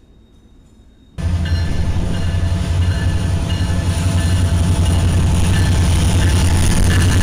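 BNSF diesel locomotives passing close by, a loud steady engine rumble with rail noise, cutting in abruptly about a second in after faint train sound.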